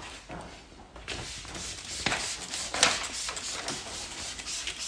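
Fine mist trigger spray bottle squirting soapy-water slip solution onto a car door panel: a series of short hissing spritzes, about one a second.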